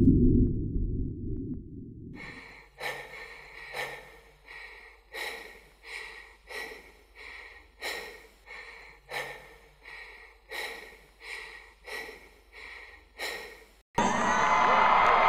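Rapid, rhythmic heavy breathing, a panting sound effect at about two breaths a second. A low intro sound fades out before it, and a loud arena crowd cuts in suddenly near the end.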